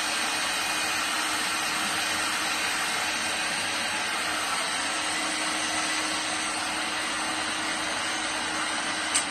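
Heat gun blowing steadily, shrinking heat-shrink tubing onto a speaker cable, with a click near the end.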